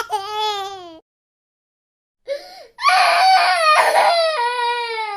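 A high-pitched wailing cry that falls in pitch and cuts off about a second in; after about a second of dead silence it starts again and goes on loud and wavering.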